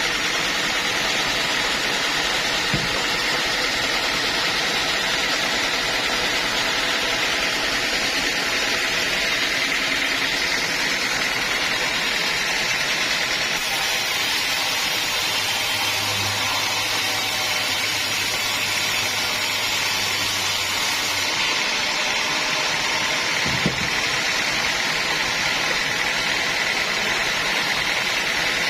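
Sawmill saw running steadily, a constant mechanical noise with a high whine, and two short knocks, one near the start and one near the end.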